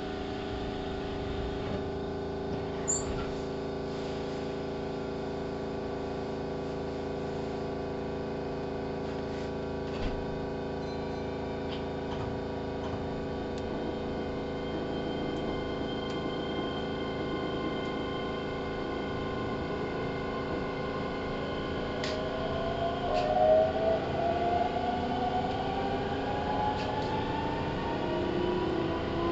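Inside a Keihan 3000 series electric train car: a steady hum of the car's electrical equipment with a few faint clicks, then about 22 seconds in the traction inverter's whine starts rising in pitch as the train pulls away and gathers speed.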